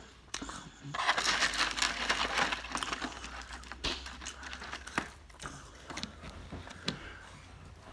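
Crinkling and rustling as fingers dig french fries out of a foam takeout container, loudest for about two seconds starting a second in, followed by a few separate sharp clicks and taps.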